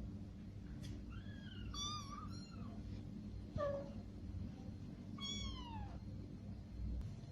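Kittens mewing: about four short, high-pitched mews, two close together around two seconds in, a brief one near the middle, and a longer mew falling in pitch about five seconds in.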